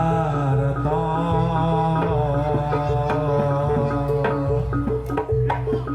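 Jaranan dance accompaniment music: a wavering melody line over steady held lower notes, with drum strokes coming in more and more often over the last couple of seconds.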